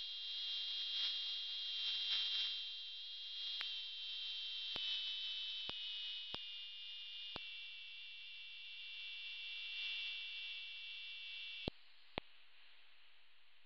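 Demodulated audio from a software-defined radio in narrowband FM mode: a cluster of steady high tones over hiss. With each sharp click the tones step down in pitch as the receiver's bandwidth setting is changed. About 12 seconds in the tones cut out, leaving near silence broken by clicks.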